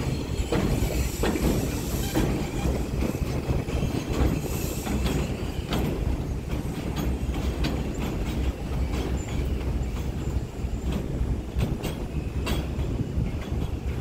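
R142 subway train pulling out and rolling away, a steady low rumble with its wheels clicking over rail joints again and again, and a faint high wheel squeal in the first few seconds.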